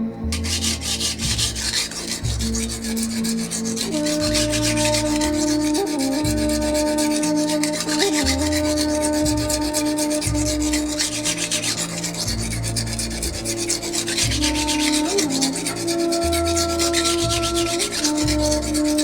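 Steel knife blade rubbed back and forth on a coarse whetstone, a steady rasping scrape as the edge is first ground. Soft background music plays underneath.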